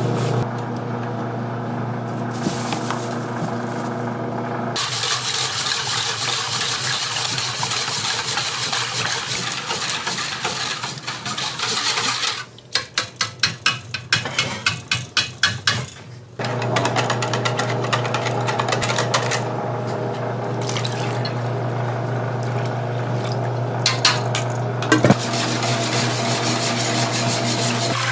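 Wire whisk beating runny donut batter in a large steel bowl: liquid sloshing, then a run of quick rhythmic strokes, about three a second, for a few seconds midway. A steady low hum runs under it.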